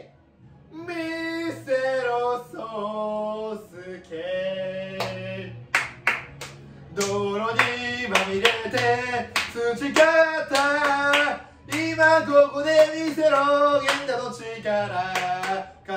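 A man singing a Japanese professional baseball cheer song in loud, held phrases, with sharp hand claps between and under the lines.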